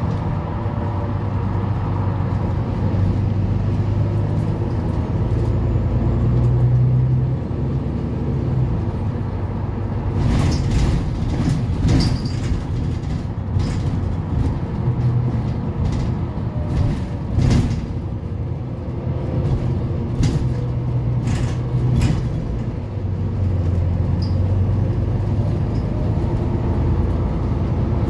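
Volvo B9TL double-decker bus heard from inside the passenger cabin on the move: its six-cylinder diesel drones steadily under road noise, the pitch shifting as the revs change. From about ten seconds in to about twenty-two seconds, irregular sharp rattles and knocks sound over it.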